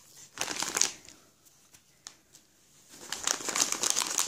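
Glossy Christmas wrapping paper crinkling as hands handle and open a small gift. A short burst comes about half a second in, then a quieter spell with a few light ticks, then steady crinkling from about three seconds in.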